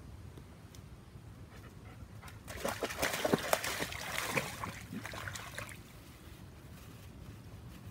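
German shepherd splashing into a shallow pool and wading through the water: a run of splashes that starts about two and a half seconds in, is loudest over the next two seconds, and dies away after about five and a half seconds.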